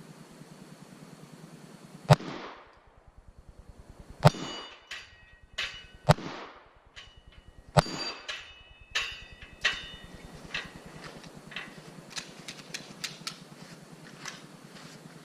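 Four gunshots at a shooting range, about two seconds apart, with fainter metallic clinks and clicks between and after them.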